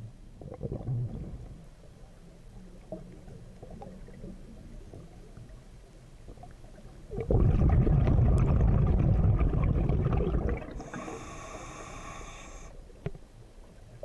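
Scuba diver's breathing heard underwater through the camera housing. About seven seconds in, a loud rush of exhaled bubbles rumbles for about three seconds. Then comes a hiss of about two seconds as the regulator delivers the next breath.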